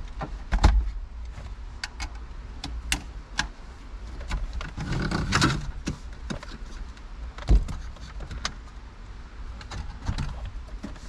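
Scattered clicks and knocks of hand tools and plastic car interior trim being worked loose, with two sharper knocks and a longer scraping rustle about halfway through.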